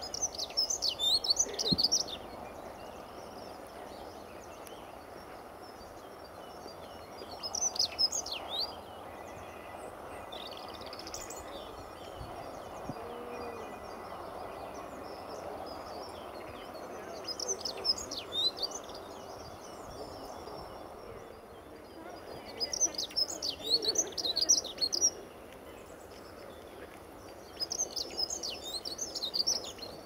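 Dunnock singing: about six short, high, rapid warbling phrases, each lasting a second or two, with a few seconds' gap between them, over a steady low background hum.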